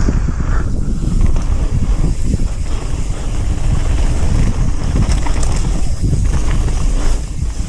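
Mountain bike riding a downhill trail: heavy wind buffeting on the microphone over the rumble of tyres on dirt and scattered rattles and clicks from the bike.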